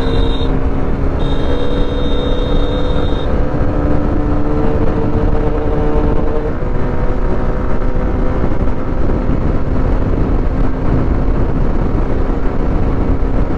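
A 125 cc single-cylinder commuter motorcycle running at a steady cruising speed, its engine note under heavy wind noise on the rider's camera mic. A faint high whistle sounds on and off for the first few seconds.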